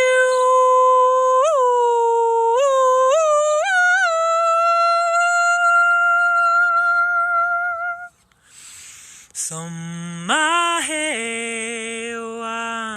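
A woman singing wordless light-language song. She holds a long high note for about eight seconds, lifting it upward in several small slides. After a short pause she comes back in much lower, slides up briefly, and settles into a held low tone.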